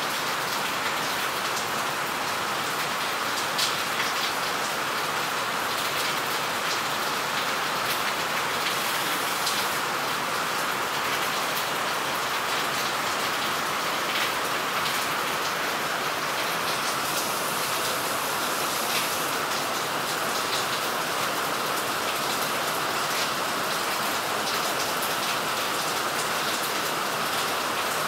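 Steady rain falling, an even hiss with scattered drop ticks.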